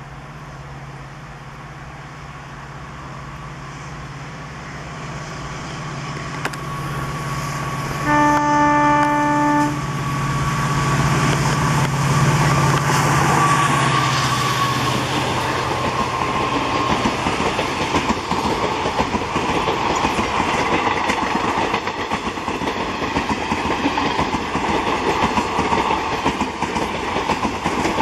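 An EMD WDG4 diesel-electric locomotive, with its two-stroke V16 engine, approaching with a rising low hum. About eight seconds in it sounds one horn blast of about a second and a half. Once the locomotive has passed, the hum fades and the passenger coaches clatter by, their wheels clicking over the rail joints.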